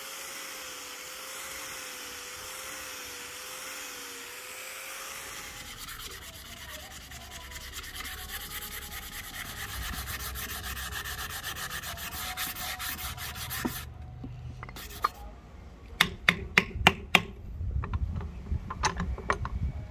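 Padauk wood hatchet handle being hand-sanded: quick, rhythmic rubbing strokes. After a steady hiss, the strokes start about six seconds in and stop near the fourteen-second mark, and a string of sharp taps follows near the end.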